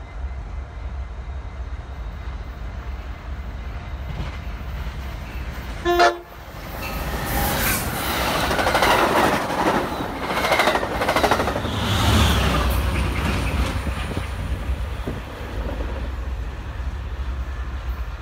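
Amtrak Pacific Surfliner passenger train going through the station: a short horn toot about six seconds in, then the loud rush and clatter of its double-deck cars passing close by. The rush dies back to a low rumble after about thirteen seconds.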